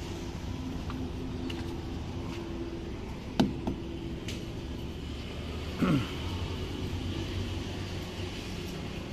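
Steady low rumble of an idling motor-vehicle engine, with a sharp click about three and a half seconds in and a brief sound falling in pitch about six seconds in.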